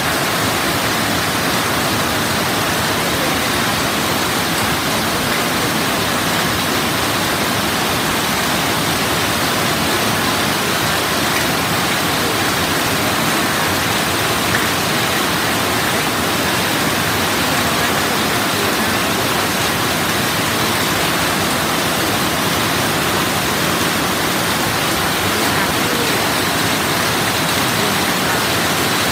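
Heavy rain falling steadily on roofs and paved ground: a dense, even hiss of a downpour that stays the same throughout.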